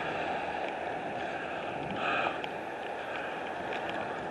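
Steady outdoor background noise with no single clear source, and a short louder hiss about two seconds in.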